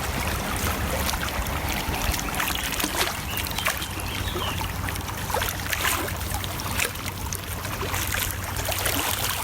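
Lake water lapping and trickling at the shore in small irregular splashes, over a steady low rumble.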